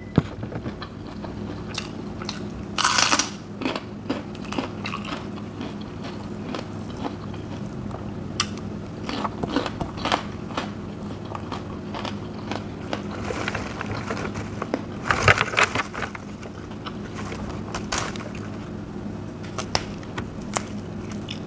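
Close-up eating sounds: wet chewing with many small sharp clicks and crunches, and two louder crunching bites about three and fifteen seconds in. A steady low hum runs underneath.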